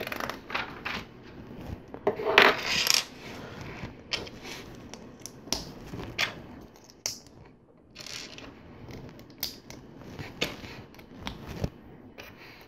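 Small plastic LEGO pieces clicking and clattering as they are picked up from the table and pressed together, a scatter of short sharp clicks with a denser, louder rattle about two seconds in.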